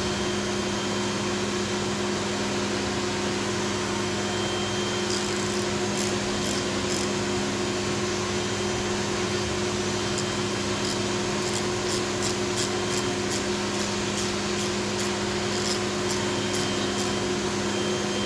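Steady whir and hum of a Fanuc Robodrill CNC mill running a cutting job. From about five seconds in, scattered light clicks come over it.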